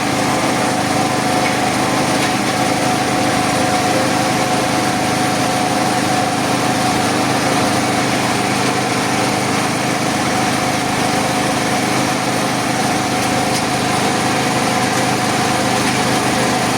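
A small engine running steadily at an even speed, a constant hum with no change in pitch or level.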